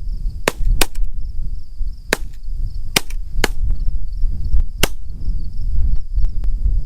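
Shotgun volley: six sharp shots fired in under five seconds, over heavy wind noise on the microphone.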